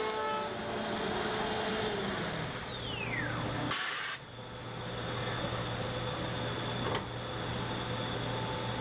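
HOMAG BMG 311 Vantage CNC router running: a high spindle whine falls steeply in pitch as it spins down, a short hiss of air comes about four seconds in, then the machine settles to a steady hum with a high tone, and a sharp click comes near seven seconds.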